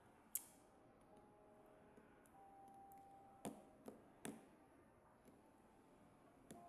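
Near silence broken by a few faint clicks: one sharp click about half a second in, then three more close together around the middle.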